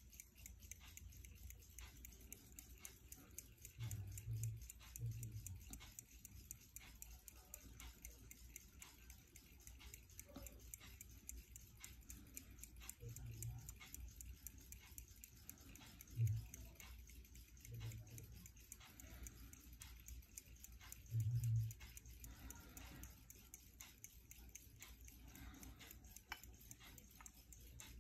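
Westclox Conductor pocket watch's pin-lever movement ticking quickly and evenly, faint. A few soft low thumps from the watch being handled stand out, the loudest about two-thirds of the way in.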